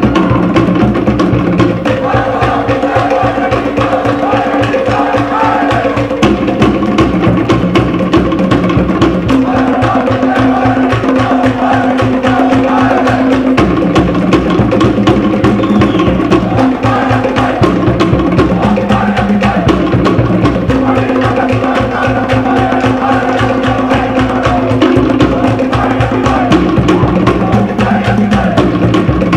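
Cook Islands drum ensemble playing a fast, steady rhythm on wooden slit drums (pate), with deeper drums underneath.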